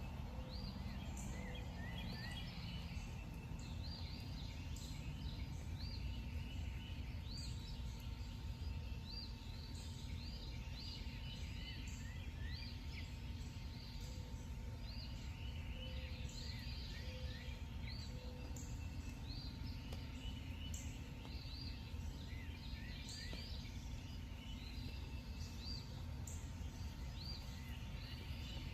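Night ambience: clusters of short, repeated chirping calls over a steady low rumble of background noise.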